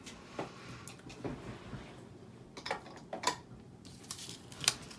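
Quiet handling noises of a craft sponge and paper on a plastic grid mat: soft rustles with scattered light taps and clicks, and a brief hiss near the end.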